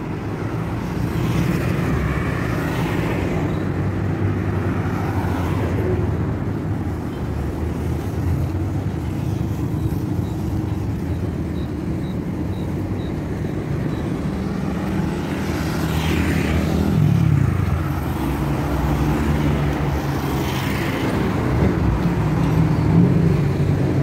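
Street traffic: cars and motorbikes passing on an avenue, a steady engine rumble. About two-thirds of the way through, one vehicle goes by close, its engine note falling in pitch as it passes.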